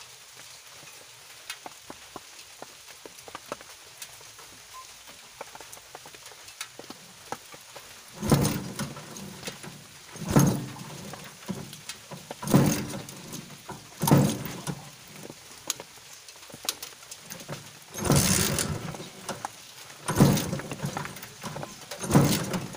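Kawasaki Barako motorcycle engine being cranked over again and again, a short surge about every two seconds starting about a third of the way in, without catching and running: it is slow to start after standing about a week.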